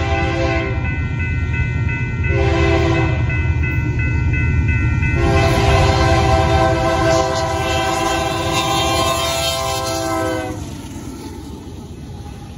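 Diesel freight locomotive's air horn sounding a chord at a grade crossing. One blast ends just after the start, a short blast comes about two seconds in, and a long blast of about five seconds follows, the close of the crossing signal. All of it sits over the heavy rumble of the approaching train, and the horn stops about ten seconds in as the locomotive reaches the crossing, leaving the rumble of engine and wheels.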